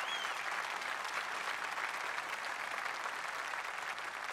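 Large crowd applauding steadily, a dense patter of many hands clapping that eases slightly near the end.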